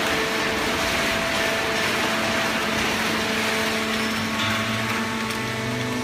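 Fully automatic hydraulic horizontal cardboard baler and its chain-plate feed conveyor running: steady machine noise with several humming tones in it, a lower hum joining about four and a half seconds in.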